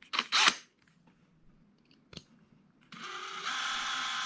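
Cordless drill starting up about three seconds in and running steadily with an even whine, drilling out the post of a die-cast toy car's base, on a battery the owner thinks is dying. A couple of brief handling noises come right at the start.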